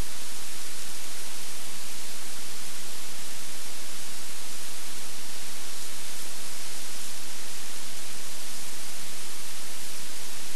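Steady, even hiss of recording noise with a faint low hum underneath. It holds at one level throughout, with no clear event standing out.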